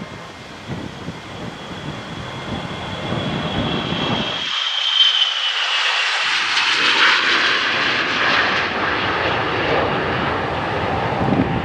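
Gulfstream IV business jet's twin Rolls-Royce Tay turbofans at takeoff power during the takeoff roll and liftoff. A high whine falls slightly in pitch about five seconds in, over a broad jet rush that grows louder.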